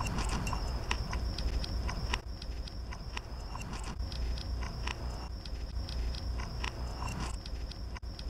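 Loud chewing layered from several clips of one man eating: a dense, irregular run of mouth clicks and smacks over a low rumble, with a steady high thin tone underneath.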